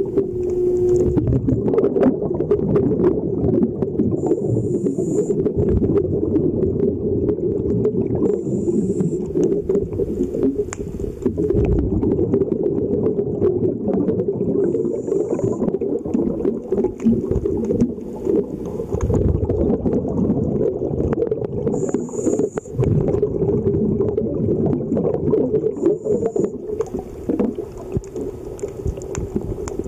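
Scuba diver's breathing heard through an underwater camera: a constant crackling, bubbling rumble of regulator exhaust bubbles, with a short high hiss every four to seven seconds.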